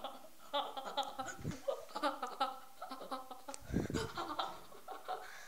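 A young person giggling quietly in short bursts of laughter. A low bump sounds on the phone's microphone just before four seconds in.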